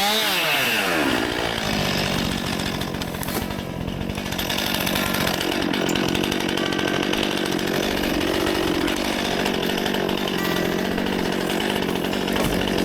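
Stihl MS261 C-M two-stroke chainsaw at full throttle, cutting through wood. Its pitch drops in the first second or so as the chain takes the load, then holds steady while it cuts.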